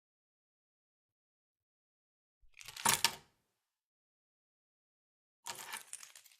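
Car key clattering and jingling as it is set down on a tabletop and picked up again: two short bursts of clinks about three seconds apart, the first louder.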